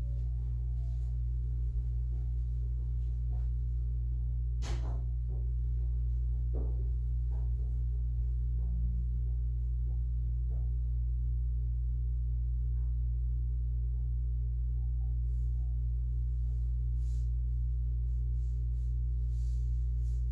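A steady low hum, with a few faint knocks and clicks, the clearest about four and a half seconds in.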